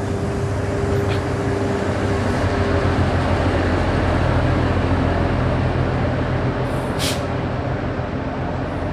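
Narrow-gauge ZDM3 diesel-hydraulic locomotive's engine running as the train moves along the platform, a steady drone that grows louder as the locomotive comes close. A short hiss of air about seven seconds in.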